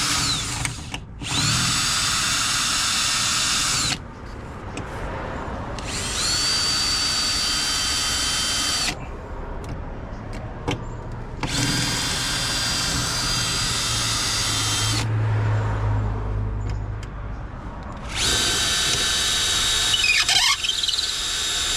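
Power drill drilling out the rivets that hold a car's rear speaker, in about five runs of a few seconds each with short pauses between, the motor whine steady within each run.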